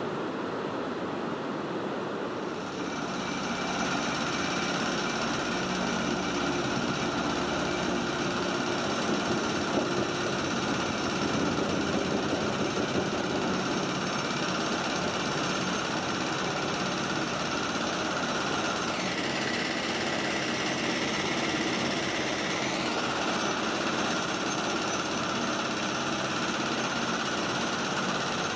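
Water rushing over a river weir for the first couple of seconds. Then the steady mechanical drone and whine of a crawler crane's vibratory pile hammer driving steel sheet piles for a cofferdam. The whine drops and climbs back up about two-thirds of the way through.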